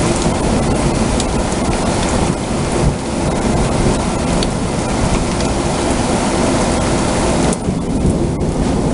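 Heavy thunderstorm rain pouring down steadily, a loud, dense hiss with a deep low rumble underneath.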